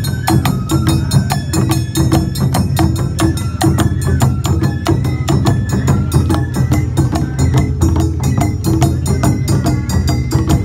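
Awa odori festival band: large barrel drums (odaiko), a small tasselled shime-daiko and a hand gong (kane) beating a fast, steady marching rhythm, with a high melody line stepping in pitch over the drums.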